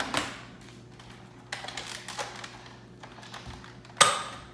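Light plastic clicks from a Nerf blaster being handled, then a single sharp, loud snap about four seconds in as the blaster fires.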